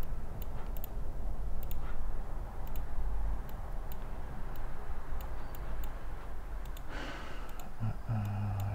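Computer mouse clicks and keyboard taps, scattered and irregular, over a steady low hum.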